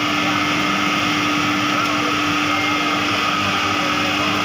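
Gas-fired thermal oil heater running steadily on test, its burner and blower making an even, loud machine noise with a constant hum.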